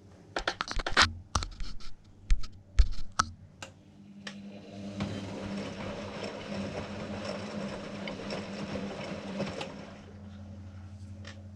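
Hotpoint WMA40 washing machine at work. A run of sharp clicks and knocks comes first, then about five seconds of steady motor hum and hiss as the wash runs, easing near the end.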